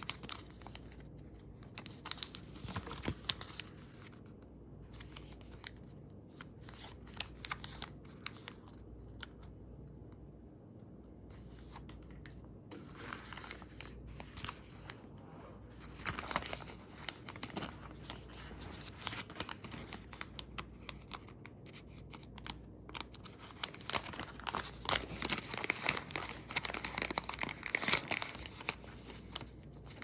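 Plastic packaging crinkling and rustling, with small clicks, as a frosted plastic bag holding clear hard watch cases is opened and a case is taken out. Sparse at first, then busier and louder through the second half.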